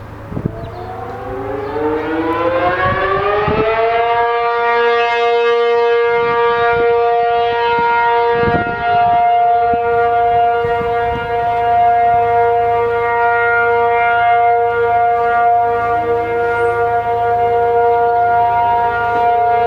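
Outdoor warning siren winding up over about four seconds, then holding a steady tone. A second, fainter siren can be heard winding up near the end, and a few knocks sound near the start and about nine seconds in.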